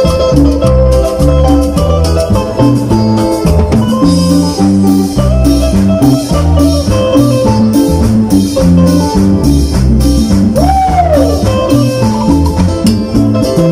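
Live cumbia band playing loudly: electric guitar melody over bass, timbales and cymbals, without singing. About ten seconds in, one note sweeps up and falls back.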